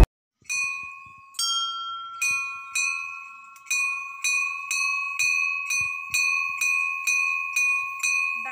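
Hanging metal temple bells rung by hand, struck over and over at a little under two strokes a second. Each stroke rings on, so the tones overlap into a continuous ringing.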